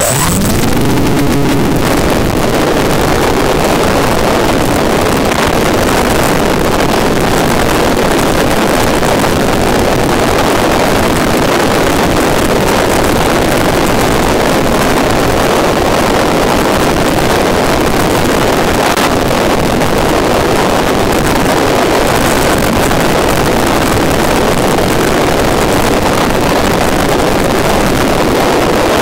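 Steady loud rush of wind and electric motor and propeller noise picked up by the onboard microphone of an FPV model plane flying at full throttle.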